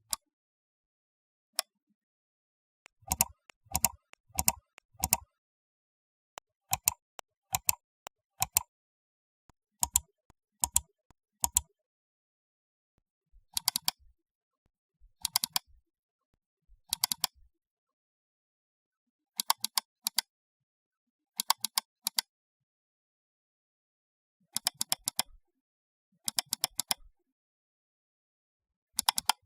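Short, sharp click sound effects, some single and most in quick clusters of two to six clicks, with complete silence between the groups.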